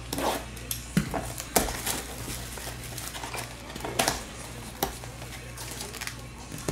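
Hands unwrapping a shrink-wrapped hockey card blaster box and pulling out its foil packs: the plastic wrap and foil crackle and rustle, with several sharp crinkles and snaps.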